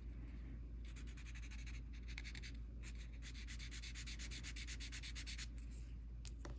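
Paper tortillion (blending stump) rubbed quickly back and forth over graphite on a paper tile, blending the shading. A faint, fast, scratchy rubbing starts about a second in and stops near the end.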